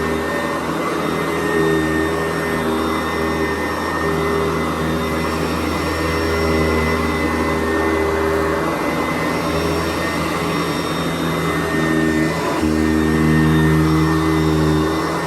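Sanitaire SC889B commercial upright vacuum cleaner running on the floor, a steady motor hum with a high whine; the hum wavers in the middle and settles slightly louder near the end.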